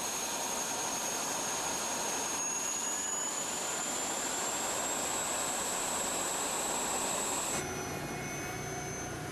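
Comanche helicopter's turbine engines and rotors running: a loud rushing noise with a thin high whine that slowly rises in pitch. About seven and a half seconds in it changes abruptly to a quieter, steadier engine sound with several fixed tones.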